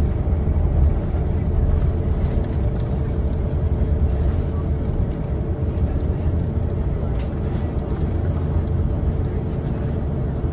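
Cabin noise inside an Airbus A350 slowing on the runway after touchdown: a steady low rumble of the wheels rolling on the runway together with the running Rolls-Royce Trent XWB engines, with a faint steady hum.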